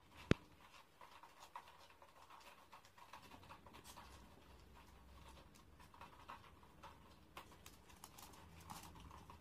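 A small dog and a cat play-fighting on a wooden floor: faint scuffling and light claw taps, with one sharp click just after the start.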